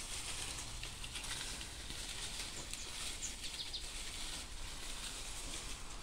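Dry maize stalks and leaves rustling as they are pulled and handled, with a few faint bird chirps a little past halfway.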